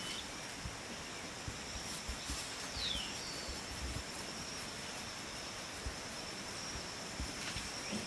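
Rural outdoor ambience: an insect drones on one steady high pitch, with a few short bird calls, one of them a quick falling call about three seconds in.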